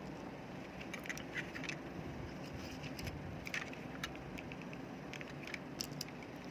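Scattered light clicks and taps of small hard parts being handled, over a steady low background hum.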